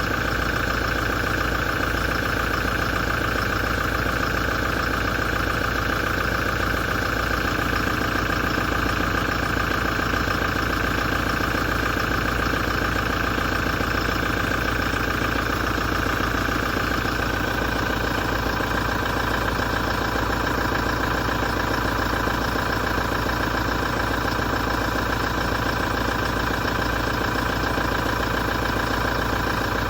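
2017 Toyota diesel engine idling steadily, with the knocking and metallic grinding vibration that the owner reports appeared after a major service.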